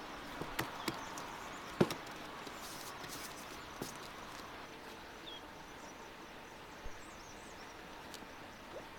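Handling sounds from a dough bowl and cloth: a few light knocks and clicks in the first four seconds, the sharpest about two seconds in, over quiet outdoor background, with a small bird chirping faintly twice later on.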